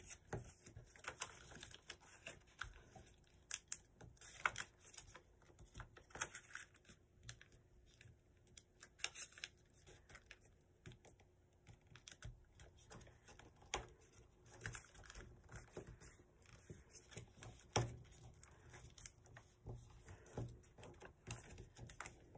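A sheet of paper being folded and creased by hand: quiet, irregular crinkles and small taps, with one sharper click about eighteen seconds in.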